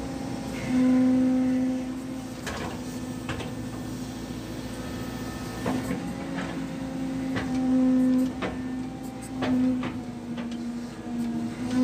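Hydraulic excavator's engine and hydraulic pump running, heard from inside the cab: a steady hum that swells louder for a second or so several times as the boom and bucket are worked, with scattered clanks and knocks.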